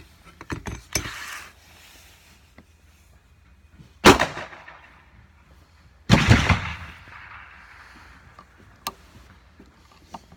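Two loud gunshots about two seconds apart, each trailing off in the room's echo, with small clicks and knocks from a Remington New Army percussion revolver being handled during loading.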